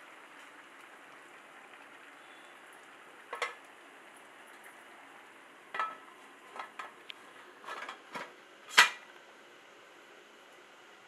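A metal lid clinks and knocks against a cooking pot as it is handled and set in place: a knock about three seconds in, a cluster of clinks and scrapes from about six to eight seconds, and one loud clank near the end. A steady faint hiss of the rice simmering runs underneath.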